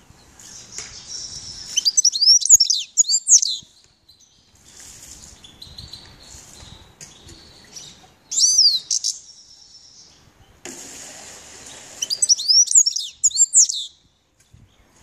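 Grey-headed goldfinch singing: quick high notes sweeping up and down, loudest in three passages, near the start, in the middle and near the end, with quieter song in between.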